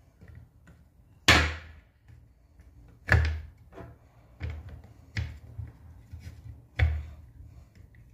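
Sharp knocks and clacks, about seven at irregular intervals with the loudest about a second in: metal drill gear parts and a hand tool being handled and set down against the plastic housing and workbench while a drill gearbox is reassembled.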